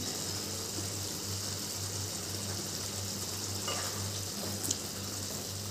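Maggi noodles simmering in their broth in a kadai on a gas stove: a steady soft hiss of bubbling liquid, with a wooden spatula stirring through the noodles and a low steady hum underneath. A faint tap of the spatula comes near the end.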